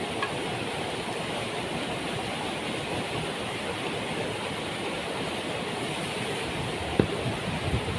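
Waterfall roaring steadily, an even rushing noise. A single sharp knock about seven seconds in, followed by a few softer knocks near the end.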